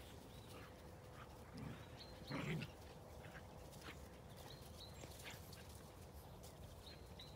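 Dogs playing rough, faintly heard. One of them gives a short, low vocalisation about two and a half seconds in, with a smaller one a little before.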